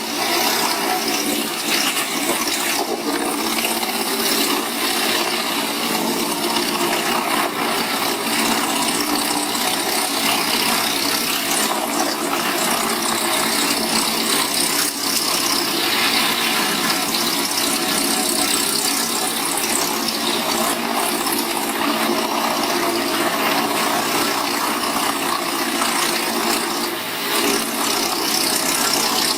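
Large wood chipper or tree shredder machine running, with a steady, loud rushing noise.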